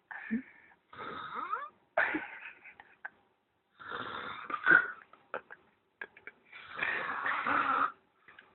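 A man snoring deeply in his sleep: a crazy, weird snore of about five wheezing breaths with short pauses between them, some with a whistling glide in pitch, the loudest about halfway through.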